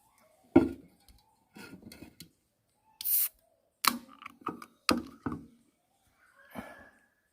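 Irregular knocks, clicks and clatters of objects being handled at close range, with a short hiss about three seconds in.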